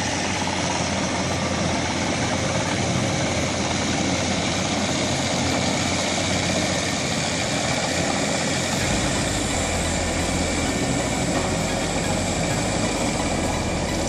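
Crawler rotavator's engine running steadily under load as its rotary tiller churns a flooded rice paddy. The sound grows deeper about nine seconds in.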